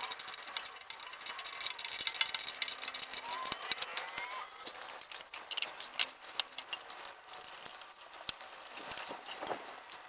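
Scattered clicks, knocks and light metallic rattling of bicycle parts being handled and refitted, with a few faint squeaks early on.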